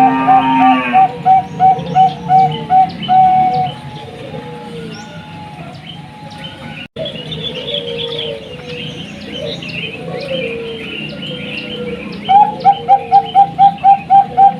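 Perkutut (zebra dove, Bangkok contest type) cooing in a quick, rhythmic series of repeated notes, about three a second, that breaks off a few seconds in and starts again near the end. Small birds chirp high and softly in between.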